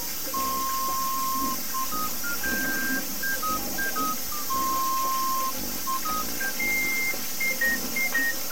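A simple electronic melody of single pure beeping notes, stepping up and down, some short and some held about a second. A steady high hiss lies underneath.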